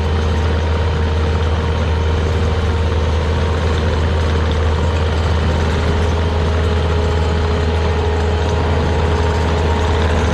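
Heavy diesel engine running steadily at an even speed, a deep steady hum with no revving.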